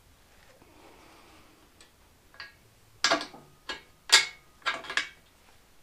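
Metal hardware and hand tools clinking at the rear shock's mounting point: a quiet first half, then four short, sharp metallic clatters in about two seconds, some ringing briefly.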